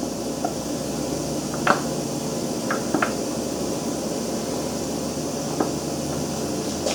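A few light, sharp clicks and knocks of metal engine parts being handled on the bench, over a steady low hum.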